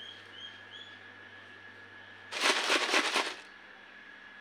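Dry namkeen mixture of fried peanuts, poha and sev rattling inside a plastic jar as the jar is handled: a dense, crackly rattle of many small clicks lasting about a second, midway through. A bird chirps a few times at the start over a faint steady hum.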